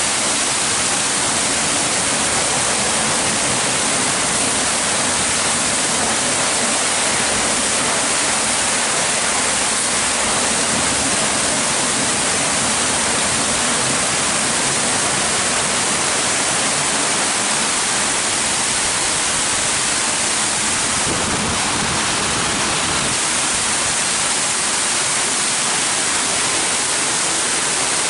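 Christ Genius Vitesse rollover car wash in its brush cycle: water spraying and rotating side brushes scrubbing the rear of a car, a steady loud rush of water.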